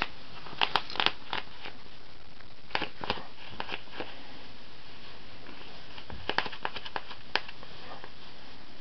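Scattered short clicks and rustles in three brief clusters over a steady hiss.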